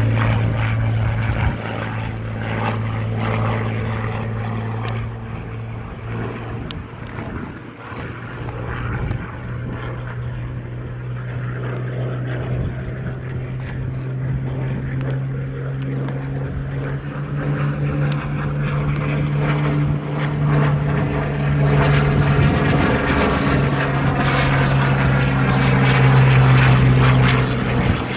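Piston-engined propeller aircraft running with a steady, deep drone, growing louder in the second half.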